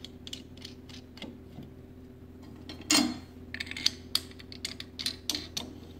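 Light metal clicks and taps from thumb screws being fitted and turned by hand into a RHINO grinder's stainless steel housing, with one louder metal clank about three seconds in.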